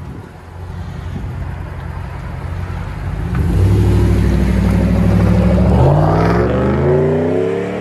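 5.7 L Hemi V8 of a Ram 1500 with a Dynomax Race Bullet resonator and muffler delete, idling, then pulling away hard about three and a half seconds in. Its note drops at a gear change near six seconds, then rises again as it accelerates away.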